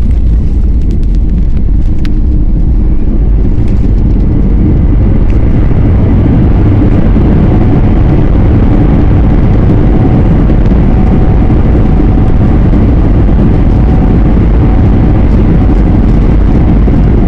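Steady, loud, low roar of an airplane landing, with faint steady tones running through it.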